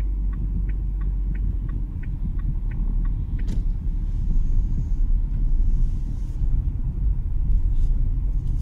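Inside the cabin of a Dacia Duster with the 1.6 SCe petrol engine, a steady low rumble of engine and tyres as the car pulls away at low speed. Light regular ticks, about three a second, run through the first three seconds.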